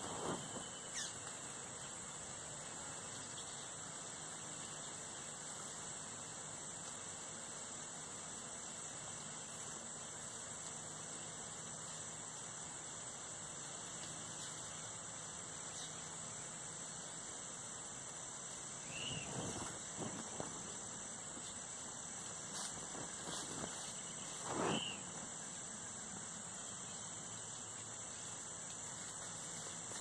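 Steady high-pitched insect chorus, with a few short, louder sounds about two-thirds of the way in and again near the end.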